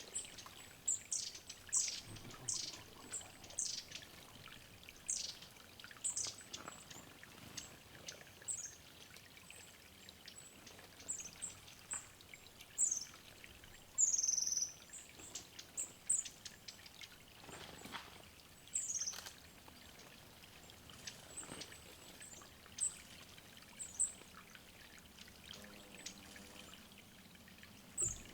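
Small forest songbirds giving many short, high, thin calls, one every second or so, with a slightly longer call about halfway through, over a faint trickle of water at a water hole.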